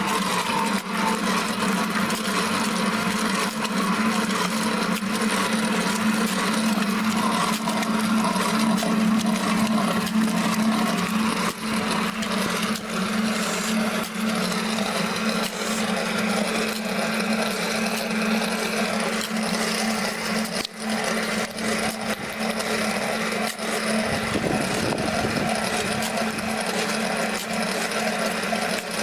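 Homemade concrete mixer running on its first test batch of water and cement: a steady electric-motor hum under the scraping, sloshing churn of the mix in the turning drum, with frequent small knocks and rattles.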